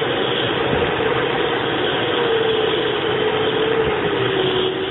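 Steady rush of air over a glider's cockpit canopy in flight, with a steady tone that slowly falls in pitch from about halfway through.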